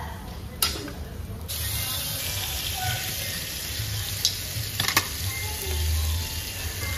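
Food frying in a little oil in a blackened wok on a gas burner. A sizzle starts abruptly about a second and a half in and carries on steadily, with a knock near the start and a few sharp metal clinks of a spoon against the wok about four to five seconds in.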